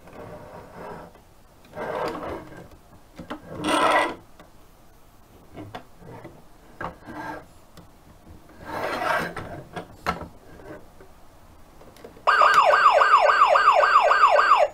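Tonka Rescue toy ambulance's plastic wheels rolling and scraping on a tabletop in a few short pushes. About twelve seconds in, its electronic siren switches on loud, a fast repeating wail of about three cycles a second.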